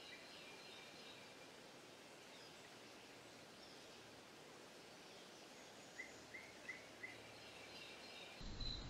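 Faint outdoor ambience: a steady hiss with a few faint bird chirps, including a run of four quick rising chirps about six seconds in. Near the end it switches abruptly to louder, regular cricket chirping.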